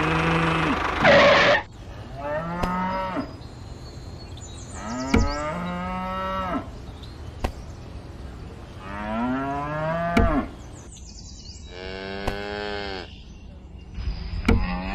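Cattle mooing: about six calls spaced two to three seconds apart, each rising and then falling in pitch. A loud rushing noise covers the first call and cuts off abruptly about a second and a half in, and a few sharp clicks fall between the calls.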